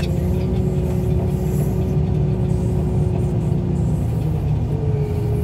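Wheel loader's diesel engine running steadily under load, heard from the cab while it carries a junk pickup truck on its forks. There is a deep rumble and a steady whine that fades about four seconds in and comes back a little higher near the end.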